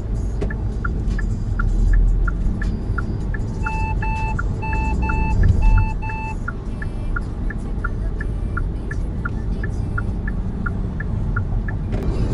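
Kia Seltos cabin on the move: steady road and engine rumble with the turn-signal indicator ticking about three times a second. About four seconds in, a dashboard warning beeps six times in three quick pairs.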